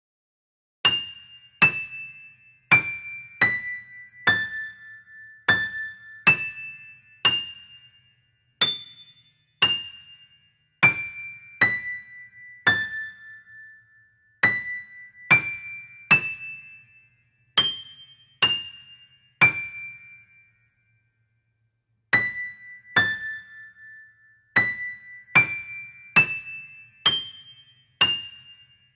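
Background music: a slow melody of single high, bell-like keyboard notes, each struck and left to die away, with a short pause about two-thirds through.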